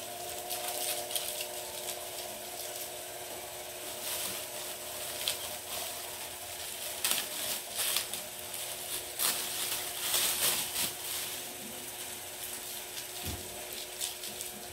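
Thin clear plastic bag crinkling and rustling in irregular bursts as it is pulled open and worked down off a portable speaker, over a steady faint hum.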